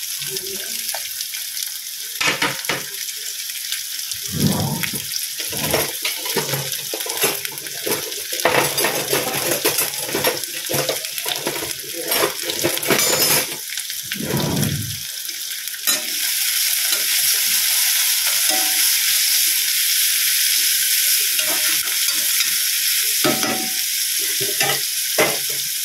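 Chopped onion, green chillies and curry leaves sizzling in hot oil in a pan, with a utensil stirring, scraping and tapping against the pan. A little past halfway the stirring eases off and the sizzle becomes louder and steadier.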